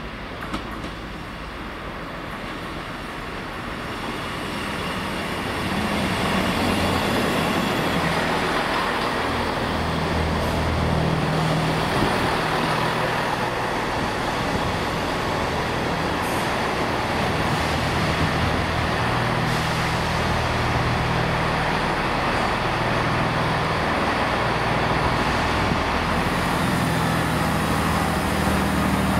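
British Rail Class 158 diesel multiple unit pulling into the station, its underfloor diesel engines growing louder over the first six seconds and then running steadily.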